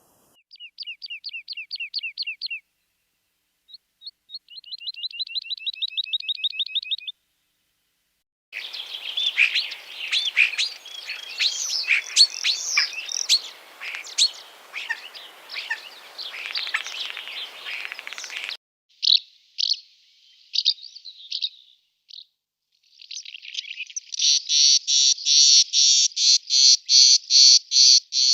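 Recorded songs and calls of several migratory birds played back one after another with short gaps: a quick run of falling notes, a trill, about ten seconds of busy, varied song, a few short calls, and near the end a loud, even series of about three notes a second.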